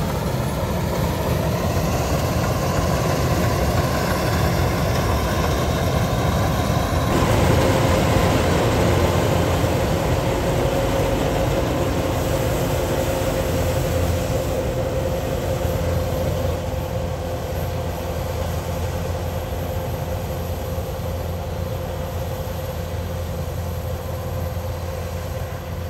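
Kubota DC-105X rice combine harvester's diesel engine and threshing machinery running steadily as it cuts rice, a constant drone with a steady whine that comes up about seven seconds in.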